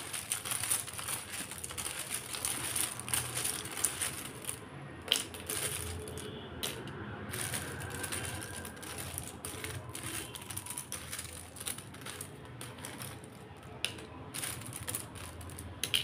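A hand rummaging through a plastic basket of plastic alphabet letters and folded paper slips: continual light clattering and clicking of the plastic letters, with paper rustling.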